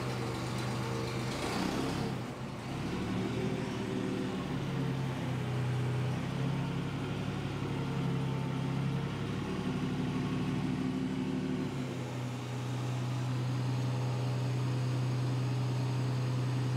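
Forklift engine running with a low hum, its pitch rising and falling a little as it lifts the bed lift clear, then holding steady at idle from about twelve seconds in.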